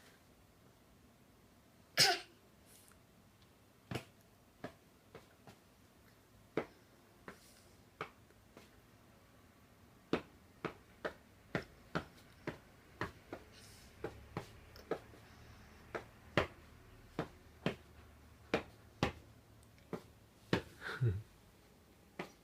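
A sneeze about two seconds in, then a long run of short, sharp clicks, about two a second, and another sneeze near the end.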